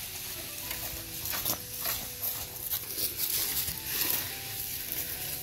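Soft instrumental background music with held notes, over scattered light clicks and taps.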